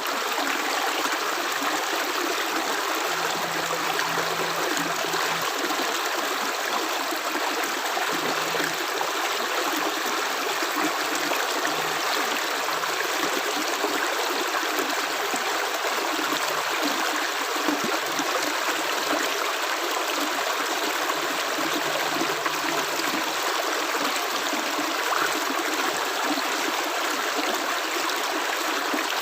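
Water running steadily, like a stream or trickle, as a continuous even rush with no separate drips standing out.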